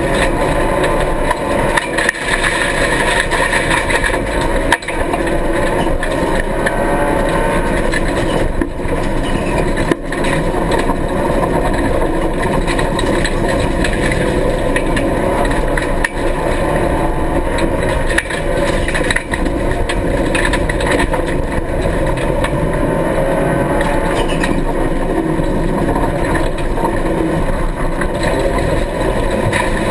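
Rally car engine running hard, heard from inside the stripped, roll-caged cabin. Its pitch rises and falls as it revs, with several brief dips in level.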